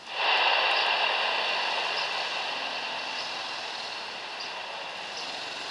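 IPTN CN-235-220's twin turboprop engines running as the aircraft rolls along the runway after landing: a steady rush of propeller and engine noise with a high turbine whine, slowly fading.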